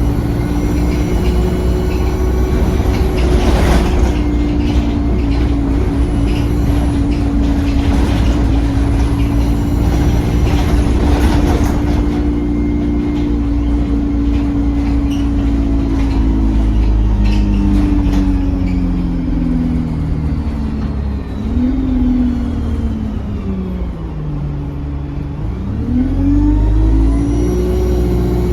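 Diesel double-decker bus heard from on board while driving, its engine and driveline whine steady at first, then stepping down in pitch as it slows and rising again as it pulls away near the end. A few short knocks and rattles in the first half.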